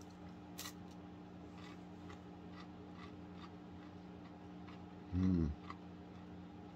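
Faint crunching of a crisp chocolate-drizzled pastry crisp being chewed, a soft crackle every second or so over a steady low hum. A brief hum of the voice, like an "mm", about five seconds in.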